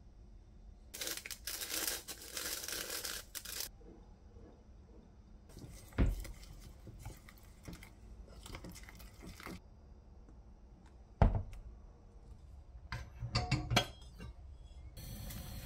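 Packaging being torn open and crinkled by hand during kitchen prep, in two stretches of rustling. Two sharp knocks fall about six and eleven seconds in, and a few quick clicks and knocks come near the end.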